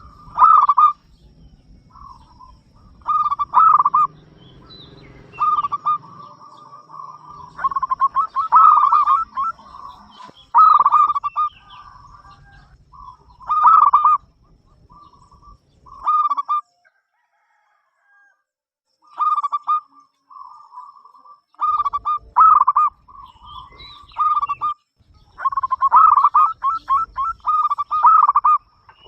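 Zebra dove cooing: short repeated phrases of quick, rolling coo notes, with a pause of about three seconds a little past the middle.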